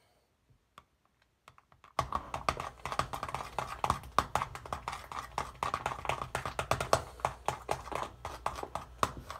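A utensil stirring a liquid sauce in a mixing bowl, clicking and tapping rapidly and unevenly against the bowl. The stirring starts about two seconds in, after near silence.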